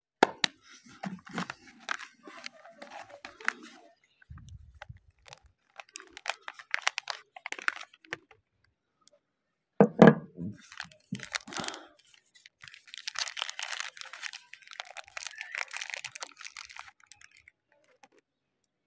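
Soap bar wrappers crinkled and torn open by hand, with crackling and tearing in bursts and a longer run of crinkling in the second half. About ten seconds in there is one loud knock.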